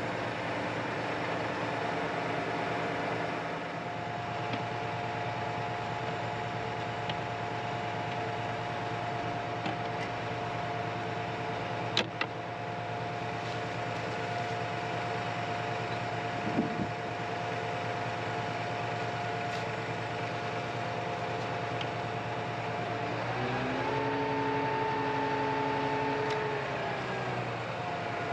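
Vehicle engine running steadily with a constant hum. About five seconds before the end its pitch rises, holds briefly, then settles back. A single sharp click is heard about twelve seconds in.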